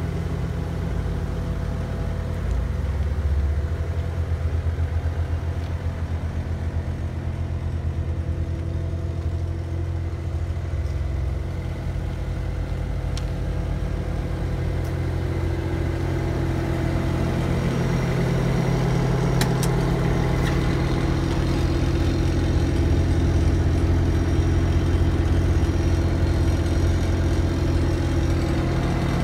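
Bobcat T870 skid steer's 99 hp Kubota turbo diesel engine running steadily, getting louder and fuller about halfway through. A couple of short clicks come shortly after.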